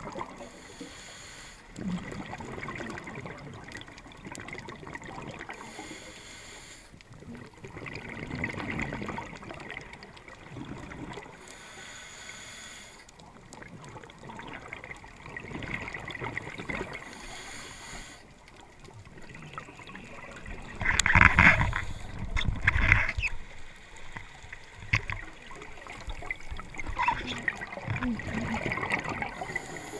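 Scuba diver breathing through a regulator underwater: a short hiss of air on each inhalation every few seconds, with bubbling from the exhaled air between breaths. A little over two-thirds of the way through comes a louder rush of bubbles, the loudest thing here.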